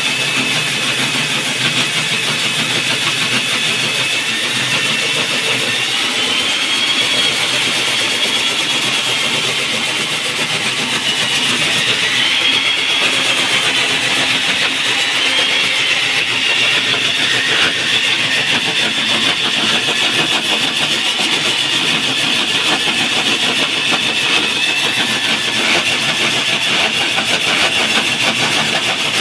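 Diamond core drill boring a hole through a concrete slab: the motor runs steadily with a high whine that wavers slightly in pitch as the load on the bit changes.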